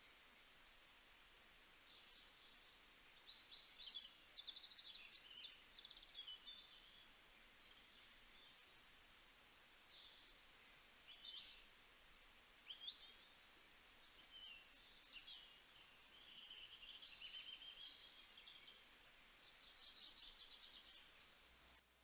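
Faint songbird song: a string of high chirps, short whistled glides and quick trills.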